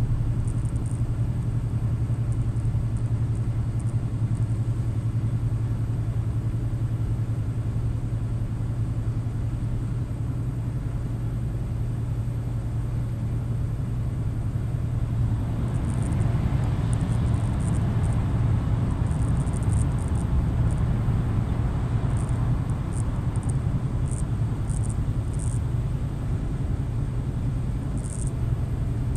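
Scania truck's diesel engine drone and tyre noise, heard from inside the cab while cruising on the highway. A little past halfway the road noise grows fuller and brighter as the truck enters a tunnel.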